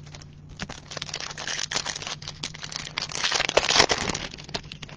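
Foil trading-card pack wrapper being torn open and crinkled: a dense crackle that builds to its loudest a little before the end, then dies away.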